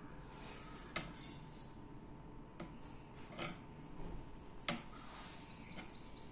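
Quiet room with a few faint clicks and soft brushing as a paintbrush is dipped in a fabric-paint jar and worked over a cloth handkerchief. A few faint high bird chirps come near the end.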